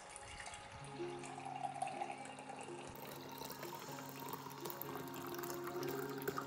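A canned drink poured in a steady stream into a glass mug, splashing and foaming as the mug fills. Soft background music with sustained notes comes in about a second in.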